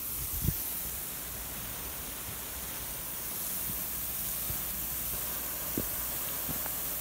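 Water jet from a pump-fed hose spraying steadily with an even rushing hiss, with a short knock about half a second in.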